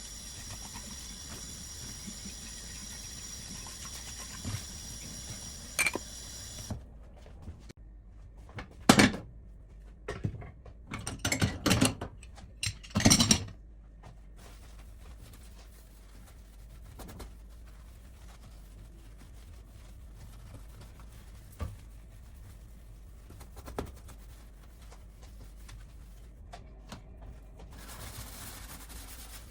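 Kitchen handling sounds: a cluster of knocks and clatters of dishes and utensils about nine to thirteen seconds in, with a few single clicks later, over a steady background hum that carries a high whine which stops about seven seconds in.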